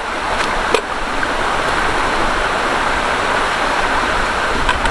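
Small mountain creek running steadily over logs and rocks, with a few sharp clicks of trekking poles striking the logs, one pair about half a second in and another near the end.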